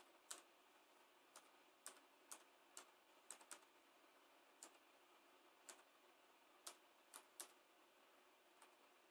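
Laptop keyboard keys being pressed one at a time while a web address is typed: faint, separate clicks at an uneven pace, some in quick pairs.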